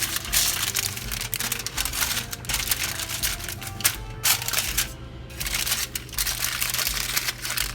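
Rapid crinkling and clicking from hands handling wrapping and seasoned fish, with a steady low hum underneath and a brief lull about four seconds in.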